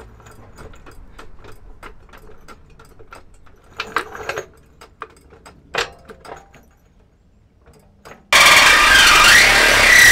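Light clinks and knocks of a floor jack being set under the truck's old muffler, then about eight seconds in a cordless Craftsman reciprocating saw starts cutting through the exhaust pipe: a loud, steady rasp with a high squeal of the blade on metal.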